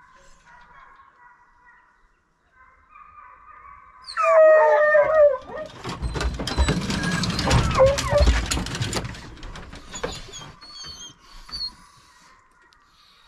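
A hunting hound in an aluminium dog box on a pickup howls and whines about four seconds in. Then come a few seconds of metal rattling and knocking as the box is opened to turn the dog loose.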